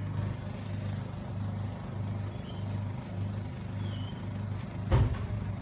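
A steady low hum that throbs about twice a second, with one dull thump about five seconds in.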